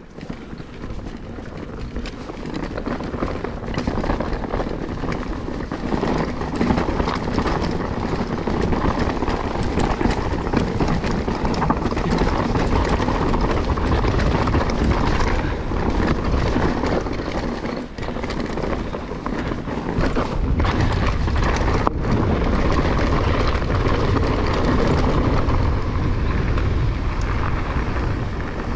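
Riding noise from a GT Force Carbon Elite mountain bike descending a dirt trail: wind rushing over the microphone and tyres rolling on dirt and gravel, with scattered knocks and rattles from the bike over rough ground. It grows louder over the first few seconds and stays loud.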